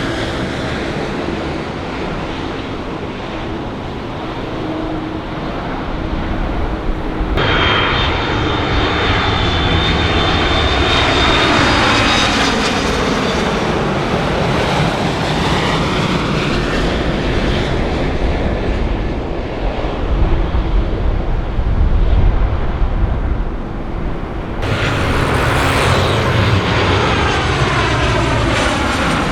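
Jet airliner engines passing close by, with whining tones that glide in pitch as each aircraft goes past. The sound changes abruptly twice, about a quarter of the way in and near the end, as a different aircraft takes over.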